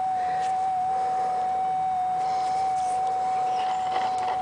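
Gold-prospecting metal detector giving its steady threshold tone, a single unchanging hum, with a few faint rustles near the end.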